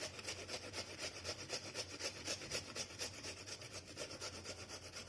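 Fresh ginger root being grated on a small hand grater: quick, even rasping strokes, about six a second.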